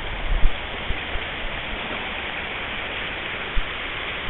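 Steady rush of a shallow river running over a riffle, with a brief low thump about half a second in.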